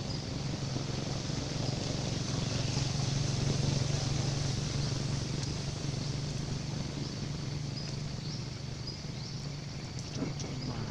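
A steady low motor hum over outdoor background noise, swelling a few seconds in and easing off toward the end, with a faint high steady tone above it.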